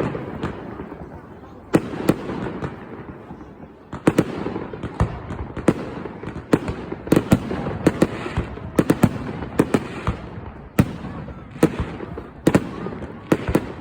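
Fireworks display: an irregular run of sharp bangs and crackles over a rolling rumble. The bangs come thicker from about four seconds in.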